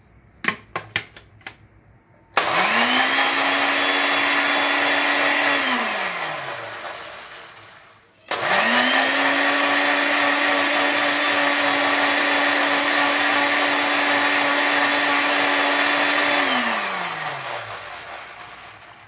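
Countertop electric blender grinding sugar with a little water. A few light clicks come first, then the motor spins up fast and runs steadily for about four seconds before winding down with a falling tone. It starts again for a longer run of about eight seconds and winds down the same way.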